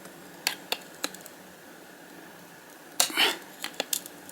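Small sharp metallic clicks and light taps of hand tools on the tinplate tabs holding a toy car's motor, as the tabs are bent and tapped down. There are three clicks in the first second, a short rasping noise about three seconds in, then a quick cluster of clicks near the end.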